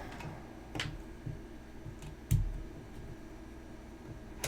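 A few scattered sharp clicks, with one louder knock about two seconds in, from handling a multimeter and its test probes during a mains voltage measurement.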